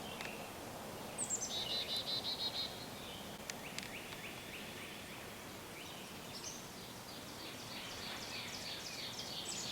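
Wild songbirds singing over a steady outdoor hiss. About a second in comes a fast run of high repeated notes. Near the middle there is a slower series of lower notes, and toward the end a longer run of falling slurred notes.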